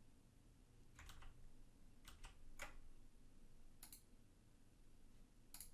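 Near silence with about half a dozen faint, short clicks of computer mouse and keyboard use, spread irregularly over a few seconds.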